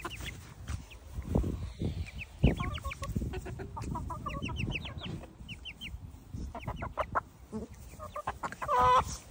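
A flock of chickens calling: quick runs of short high peeps, with lower clucks mixed in and scattered low thumps. Near the end one bird gives a louder, longer squawk.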